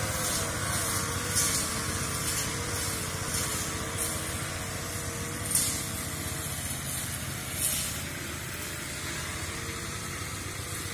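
Small petrol engine running steadily, with a few short hissing bursts at uneven spacing.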